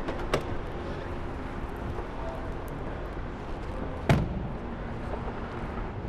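A car door shut once about four seconds in, the loudest sound, over a steady low rumble, with a sharp click just after the start.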